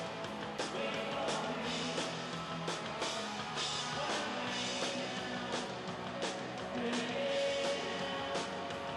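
Rock band playing live, with drums and cymbals hitting on a steady beat under electric guitar, picked up by a TV news camera's own microphone.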